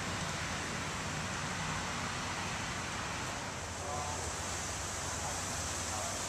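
Steady outdoor background noise, an even rush with a low hum underneath and no distinct events.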